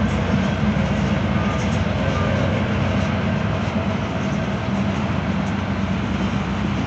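Freight train's cars rolling past at low speed: a steady rumble of steel wheels on the rails, with faint scattered ticks.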